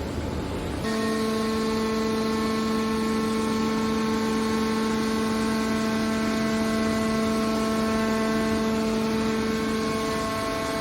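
Hydraulic metal baler running: a steady machine hum with a pitched whine that starts abruptly about a second in and holds level.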